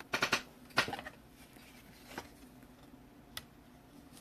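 Trading cards being handled by hand: a few short rustles and slides, the loudest cluster in the first second, then two fainter ones.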